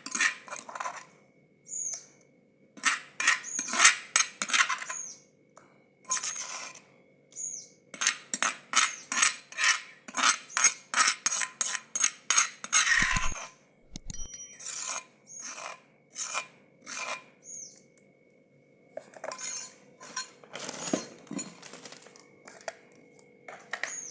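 A spoon scraping and clinking against a dish in runs of quick repeated strokes, as pounded onion chutney is scooped out of the mortar. A bird chirps briefly now and then.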